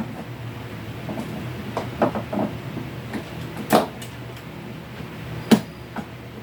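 Scattered clicks and knocks from hands and tools working on the wiring of a relay circuit, the two loudest about four and five and a half seconds in, over a steady low hum.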